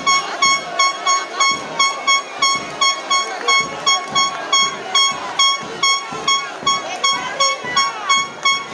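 A high horn-like tone tooting over and over in a steady rhythm, about two and a half toots a second, over the shouting voices of a crowd.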